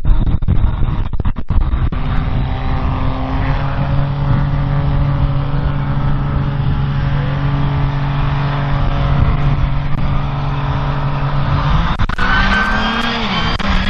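Turbo-diesel drag-racing truck engine running loud at steady high revs. About twelve seconds in, the tires start to squeal.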